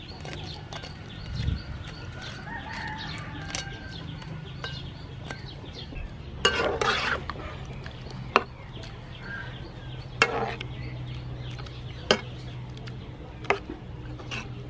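Chickens clucking, with a louder call about six and a half seconds in, and a few sharp knocks of a steel ladle against a wok as clams are stirred in boiling water.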